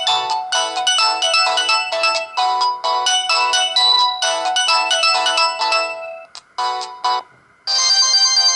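Stock polyphonic ringtone of a Samsung GT-E2120 mobile phone: a bright synth melody of short, evenly spaced notes that stops about seven seconds in. After a half-second pause, a different ringtone tune begins.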